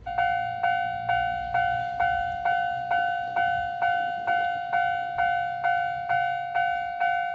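Japanese-style railway crossing warning bell ringing: an electronic ding repeated evenly, about two strikes a second, each fading before the next, starting just after the beginning.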